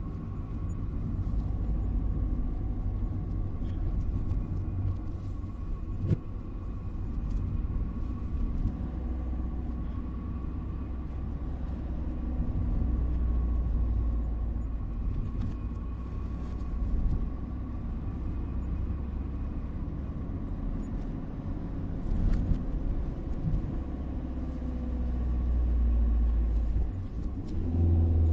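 Car driving, a steady low rumble of engine and road noise with a faint steady higher hum over it. Near the end the engine note rises briefly.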